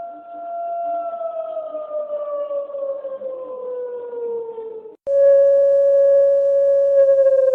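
Mock Emergency Alert System alarm tone: a single steady electronic tone that slowly slides down in pitch. It cuts out about five seconds in, comes back louder at a lower steady pitch, and starts to fall again at the end.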